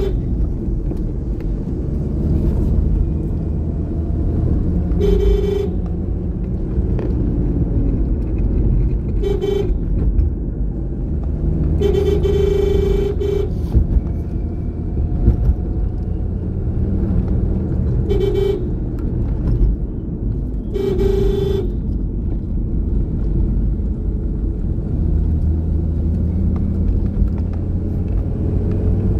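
A motor vehicle driving along a road, heard from inside: a steady rumble of engine and tyres. A vehicle horn toots five times, the third blast held for over a second.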